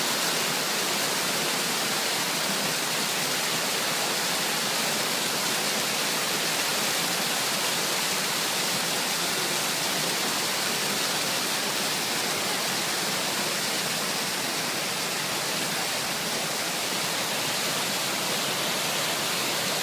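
Water fountain splashing steadily, an even rushing hiss with no change throughout.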